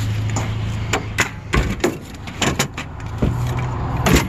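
Vehicle running with a steady low hum, under a string of short sharp knocks and rattles, the loudest just before the end.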